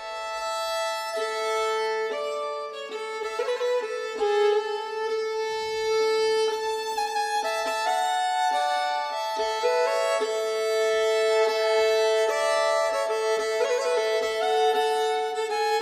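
Background music led by a violin playing a slow melody of held notes.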